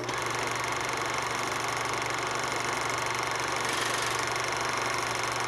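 Steady machinery running with a fast, even pulse, cutting off suddenly near the end.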